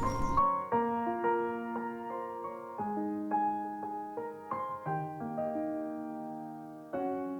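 Solo piano background music, notes and chords struck every half second or so and left to ring. The outdoor field sound cuts out about half a second in, leaving only the piano.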